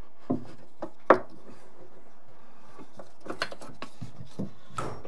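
Wooden strips that are stapled on being pried off a cut door piece with a small flat hand tool: light scraping with a few sharp clicks and snaps, the sharpest about a second in.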